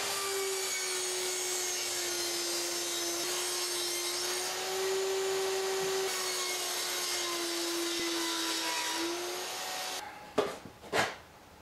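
Table saw running and cutting a rebate along the edge of a wooden cladding board, its steady motor tone sagging slightly under the load of the cut. The saw sound cuts off abruptly about ten seconds in, followed by a few knocks as the board is handled.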